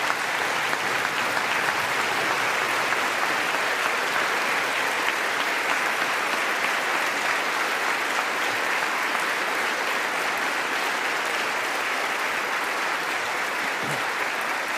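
Standing ovation: a large crowd of lawmakers clapping steadily and densely.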